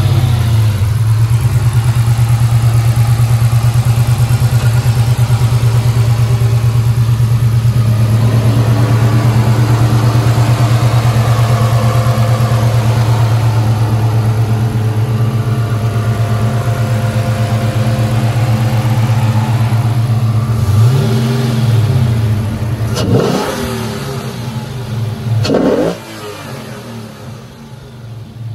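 2009 Dodge Challenger SRT-8's 6.1-litre V8 idling steadily. Near the end the throttle is blipped three times, the last two revs sharper, and after the last one it settles to a quieter idle.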